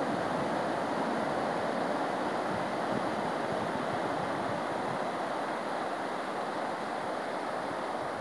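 Low waves breaking and washing up over wet sand: a steady rushing surf.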